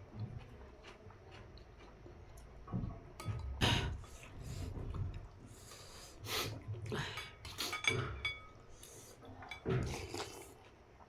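Eating noises from a person having noodle soup: utensils clink against a bowl, with a few louder, irregular bursts of slurping and chewing.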